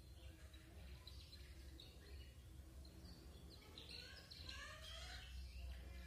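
Faint chirping of a young canary: scattered short notes, with a brief cluster of quick rising and falling chirps about four to five seconds in, over a low steady hum.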